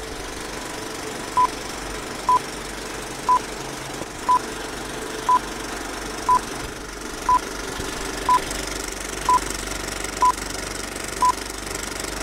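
Film-leader countdown sound effect: short high beeps of one pitch, one a second, eleven in all, over a steady hiss.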